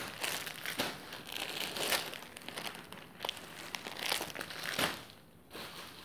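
Clear plastic garment packets crinkling in irregular bursts as packed kurtis are handled and shifted on a pile, with a short lull about five seconds in.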